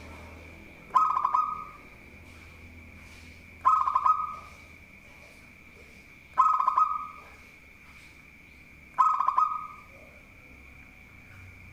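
Zebra dove (perkutut) cooing: four short, loud coo phrases, evenly spaced about every two and a half seconds.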